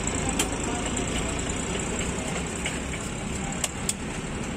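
Steady street traffic noise, with a few sharp clicks over it, two of them close together near the end.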